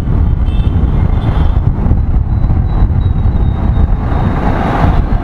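Motorcycle being ridden through traffic: a steady low rumble of engine and wind buffeting the microphone.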